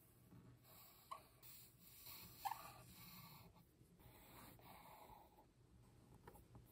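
Fine-tip pen drawing on a smooth, glossy surface: faint scratching strokes with a few brief squeaks of the nib, the loudest about two and a half seconds in.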